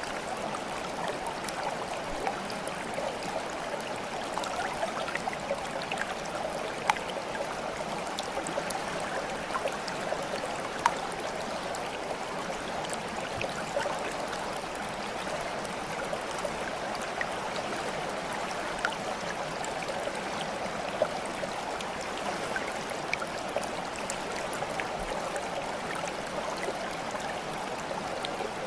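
A small stream running steadily, with scattered sharp little drips or splashes; two stand out about 7 and 11 seconds in.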